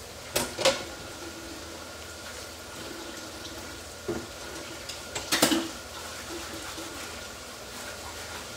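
Potato chips frying in hot oil in a pan, a steady sizzle. A few sharp clicks cut through it: two near the start, one about four seconds in, and the loudest cluster about five and a half seconds in.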